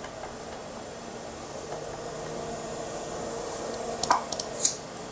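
Steady hum of a running Power Macintosh 7300/200 desktop computer's cooling fan, with a few quick mouse clicks about four seconds in.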